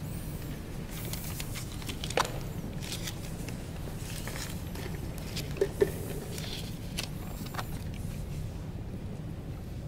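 Steady low room hum with faint scattered rustles and small sharp clicks of something being handled, the loudest click about two seconds in and two more just before six seconds.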